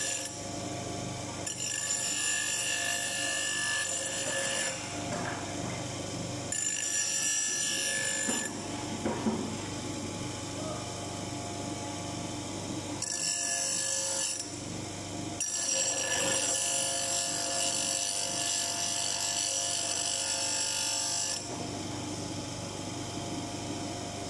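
Bench grinder grinding an iron hammer head in four main passes, each a high grinding hiss lasting from about two to six seconds, with the grinder motor's steady hum running between passes.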